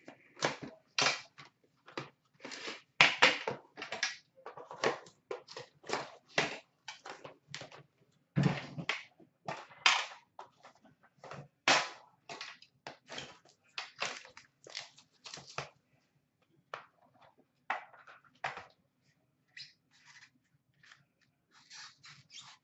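Crinkling, crackling and rustling of plastic wrap and packaging as an Upper Deck The Cup hockey card tin is unwrapped and opened. A quick run of sharp crackles and clicks for about sixteen seconds, then sparser handling clicks as the inner box is opened.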